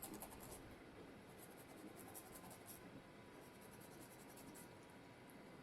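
Near silence with faint, irregular scratching of a knife scoring slits into raw fish, thickest in the first half-second and scattered after.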